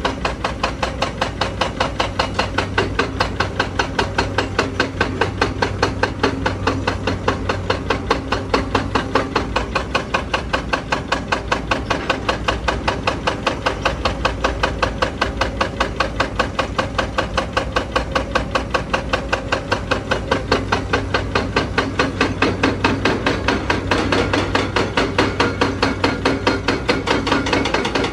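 Zoomlion ZE335E excavator's hydraulic breaker hammering rock: a rapid, steady train of chisel blows, several a second, that keeps going without a break.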